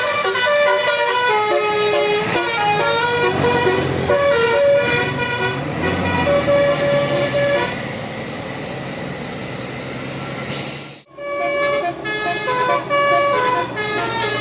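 Bus telolet horn, a set of switched air horns, playing a quick tune of held notes that step up and down, over the bus's engine and road noise. About eight seconds in the tune stops, leaving engine and road noise. The sound cuts out for a moment near eleven seconds, then another horn tune starts.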